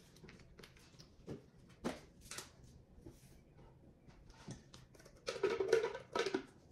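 Kitchen utensil handling at a counter: a spoon tapping and scraping a measuring cup over a mixing bowl, scattered light clicks, then a louder stretch of scraping and rustling about five seconds in as a plastic container is handled.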